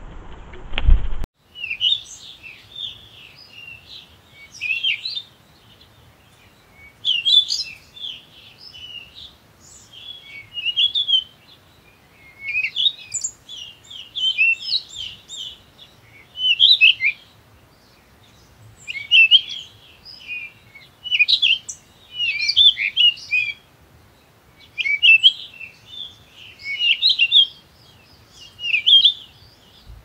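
A songbird singing in short phrases of varied high notes, each about a second long with brief pauses between, repeating over and over. A low thump about a second in, just before the song starts.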